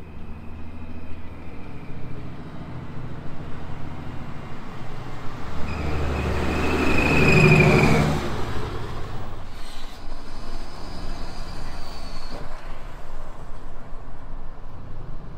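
Ram 3500 dually pickup with a 6.7-litre Cummins turbo-diesel driving past, its engine growing louder to a peak about seven seconds in with a high whistle over it, then fading. After that, steady engine and road noise from inside the cab while driving.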